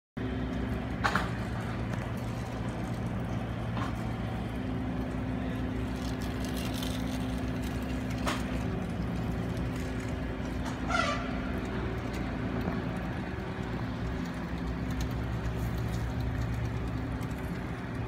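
Steady low mechanical hum of an idling vehicle engine, with a few short gull calls over it, the last one, about two-thirds of the way through, dipping and rising in pitch.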